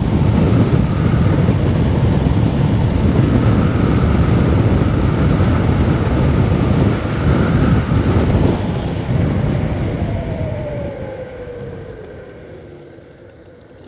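Wind rushing over the microphone and road rumble on an Onyx RCR electric moped at about 48 mph, with a faint electric motor whine. From about nine seconds in, the bike slows: the rush fades and the whine falls in pitch.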